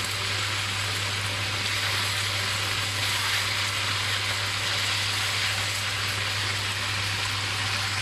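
Chunks of beef searing in hot vegetable oil in a cast-iron wok: a steady, dense sizzle.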